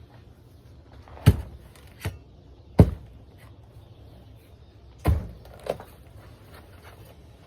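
Heavy blows struck by hand into a hot tub during demolition: five hard hits, three loud and two lighter, each a sharp thud with a short low ring.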